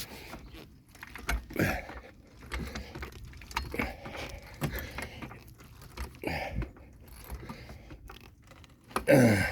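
Scattered metallic clinks, knocks and rustling from tools and gear being handled, with a brief sound falling in pitch near the end, the loudest in the stretch.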